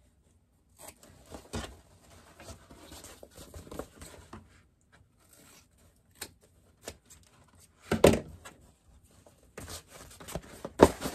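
Scissors snipping through the seam allowances of waterproof canvas, a run of short crisp cuts with the stiff, rubbery canvas rustling. A couple of louder knocks and rustles come later as the scissors are set down and the canvas piece is handled.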